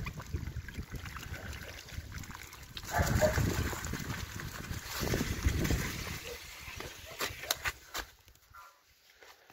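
Bicycle tyres rolling through wet slush and mud, splashing and squelching in uneven surges, with a few sharp clicks late on. The sound dies down near the end.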